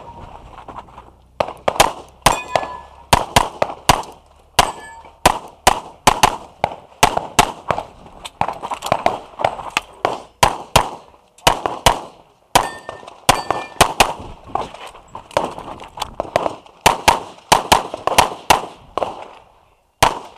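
Pistol shots fired in quick pairs and strings, with short pauses between target arrays. A few hits on steel targets ring out briefly with a metallic clang.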